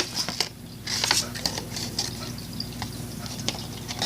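Paper card packs being handled and set down: light rustling with a scatter of small taps and clicks.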